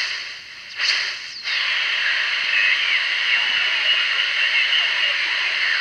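Shortwave receiver's speaker as the BFO is tuned across an SSB signal: band hiss with wavering, warbling tones. The sound drops away twice in the first second and a half, a whistle gliding in pitch as it comes back, then it carries on as steady hiss.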